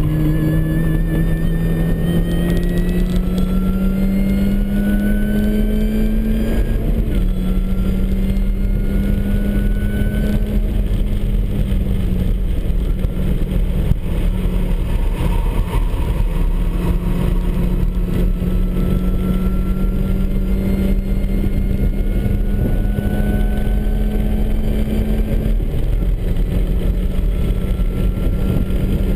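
MINI Cooper S's supercharged four-cylinder engine pulling hard on track, its pitch climbing for several seconds and then dropping sharply about seven seconds in, with later drops in pitch near twelve and twenty-six seconds. A higher whine rises and falls with the engine, from the supercharger running a smaller upper pulley.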